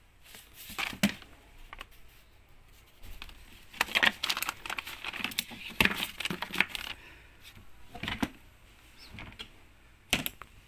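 Plastic bags rustling and crinkling as a hand handles wrapped items in a plastic storage crate, with scattered plastic clicks and knocks. The rustling is densest in the middle, and there is a sharp knock near the end.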